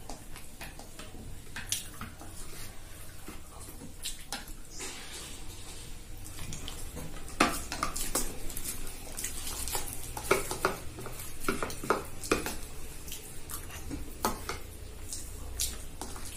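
Metal spoons clinking and scraping against small bowls as two people eat. The sharp clinks are sparse at first and come thick and fast through the second half.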